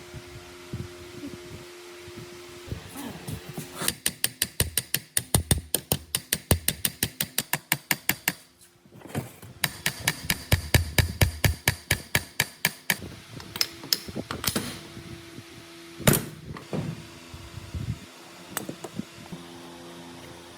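Metal hand tool working on the chisel mortiser: two runs of rapid, even clicks, about six or seven a second, then a few scattered single knocks.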